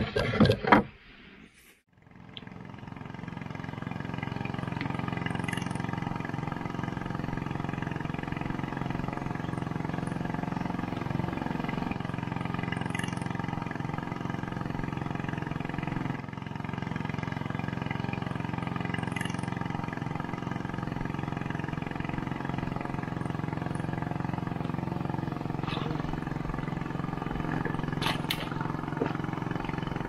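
An engine runs steadily with an even drone, fading in about two seconds in after a short loud burst at the start.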